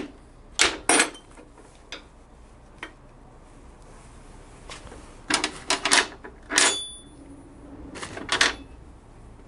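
Irregular metal clinks and knocks of a wrench against bolts and nuts on a motorcycle transmission mounting plate as they are snugged down. The clinks are scattered, busiest from about five to seven seconds in and again near the end, and one leaves a brief metallic ring.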